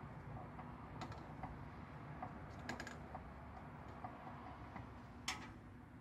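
Scattered light clicks and taps, with a sharper click about five seconds in, from hands working the test cock and test-pump fittings of an air-tube differential heat detector, as it is reset after its operation test. A faint steady hum runs underneath.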